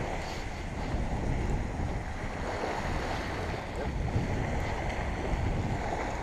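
Small surf washing onto a sandy beach, a steady wash of water with wind buffeting the microphone.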